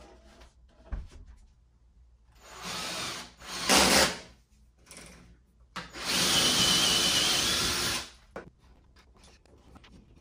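Cordless drill running as it bores up into the drywall ceiling: a short run a couple of seconds in, then a steady run of about two seconds around six seconds in.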